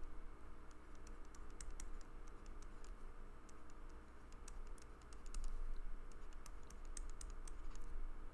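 A stylus writing on a drawing tablet, making irregular small taps and clicks over a low steady hum.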